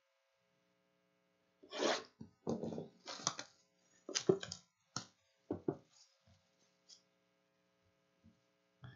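Plastic shrink-wrap crinkling and tearing as a sealed cardboard box of trading cards is unwrapped, in a string of short bursts, with a few soft knocks of the box being handled.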